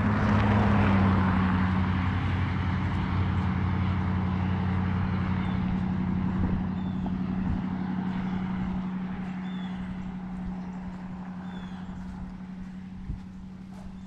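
A motor vehicle's engine running as a steady low hum. It is loudest about a second in, drops slightly in pitch there, and then slowly fades away.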